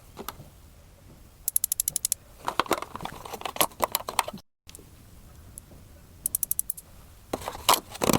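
Board game components being handled, with light knocks and rustling, and twice a quick run of about ten crisp ticks like a thumb flicking through the edge of a stack of cards. The sound cuts out briefly near the middle.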